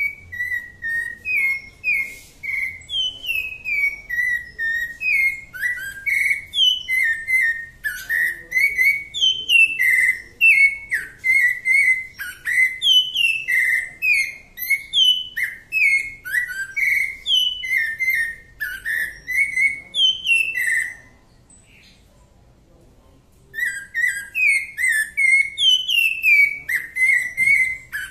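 Cocoa thrush (sabiá-da-mata) singing a long, continuous run of clear whistled notes, several a second, each sliding down or up, in the song type breeders call 'Santa Fé'. About 21 seconds in the song stops for two or three seconds, then starts again.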